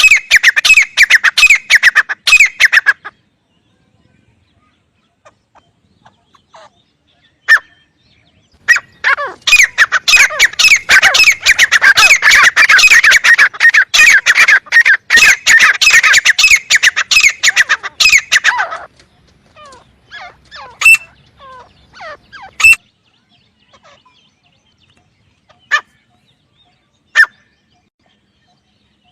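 Teetar (francolin) calling: loud runs of rapid, repeated sharp notes. A short run at the start, a pause, then a long run of about ten seconds in the middle, followed by scattered single notes.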